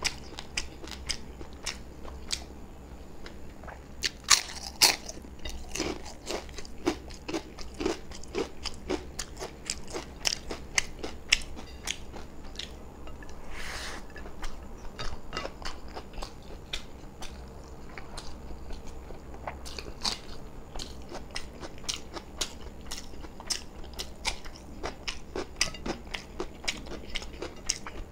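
Close-miked eating: a man chewing with his mouth full, with many sharp crunches and wet mouth clicks. The crunching is busiest and loudest in the first half.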